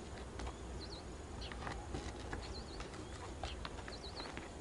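Faint natural ambience with small birds chirping: short high chirps in twos and threes every second or so, over scattered light clicks and a low steady background hum.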